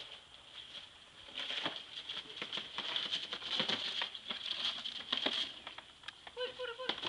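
Rope running fast over a tree limb as a hanging pet carrier is let down, a rasping hiss with crackles that stops about five and a half seconds in.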